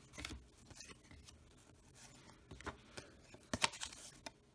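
Baseball cards being handled and flipped through by hand: soft paper-card scrapes and light snaps, with a sharper cluster of clicks about three and a half seconds in.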